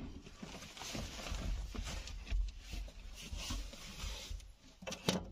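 Faint, irregular rustling and handling noises with a low rumble and a few small knocks near the end.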